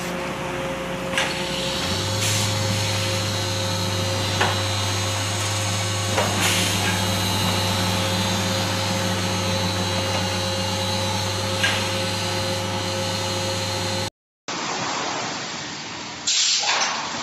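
Automatic feed bagging and palletizing line running with a steady machine hum, a deeper hum coming in about two seconds in. A few short sharp hisses break in now and then, and near the end the sound turns noisier, with louder bursts.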